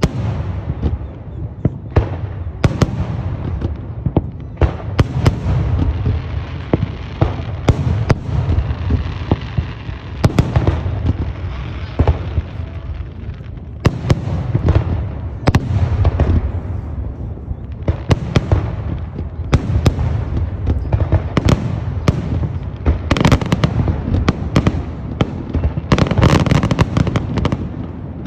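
Fireworks display: a rapid, continuous barrage of sharp bangs and deep booms over a steady low rumble, with the bangs packed densest near the end.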